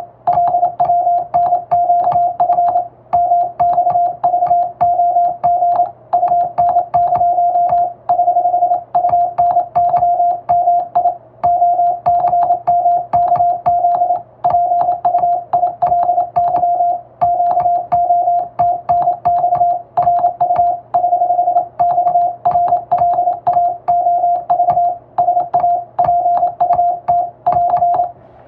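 Morse code sent by hand on a telegraph key: a steady mid-pitched sidetone beep keyed on and off in rapid dots and dashes of international (English-letter) Morse, with short pauses between letters and words. A faint click comes with each keyed element, and the sending stops right at the end.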